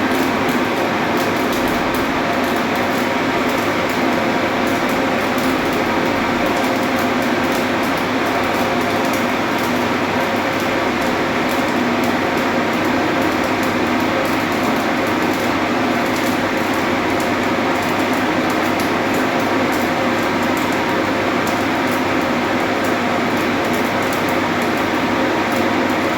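Arc welding a root pass on 10 mm plate in the 4G overhead position: a steady fine crackle over a constant machinery hum.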